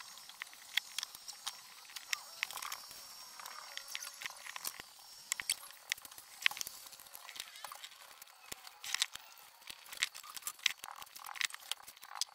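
Small metal and plastic RC car parts being handled and fitted by hand on a workbench: scattered light clicks, taps and knocks as the nitro engine with its tuned pipe is set into the chassis.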